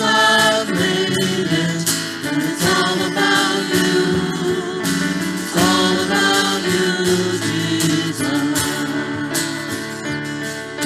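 Live worship band playing a slow song: strummed acoustic guitars, electric bass and keyboard under voices singing.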